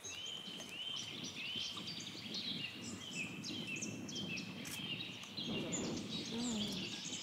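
Many birds chirping and calling at once: short, quick chirps and hooked whistled notes overlapping throughout, over a low background rumble.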